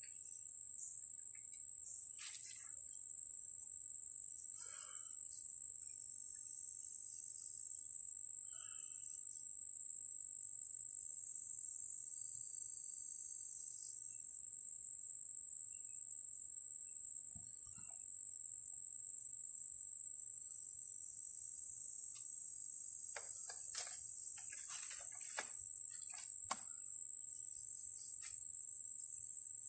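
Steady high-pitched chorus of crickets, with a still higher insect call pulsing on and off during the first half. A few short bird chirps sound early on, and a cluster of clicks and crackles comes about three-quarters of the way through.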